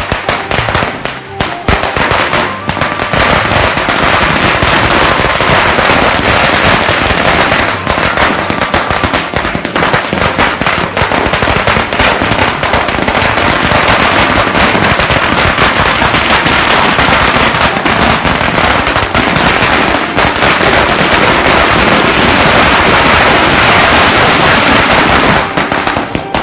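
Fireworks going off in a loud, rapid barrage of crackling bangs, sparse at first and a dense continuous crackle from about three seconds in.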